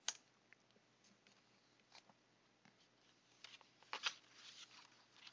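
Computer keyboard and mouse: one sharp keystroke right at the start, then a few fainter scattered clicks about two seconds in and around four seconds, over near silence.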